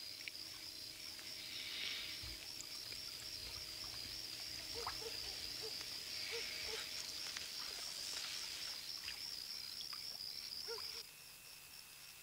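Night-time outdoor ambience: insects chirping in a steady, fast, even pulse, with a few short low frog croaks. The chirping drops out abruptly near the end.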